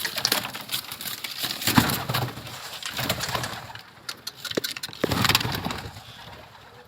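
Domestic pigeons cooing, with scattered short clicks and rustles among them.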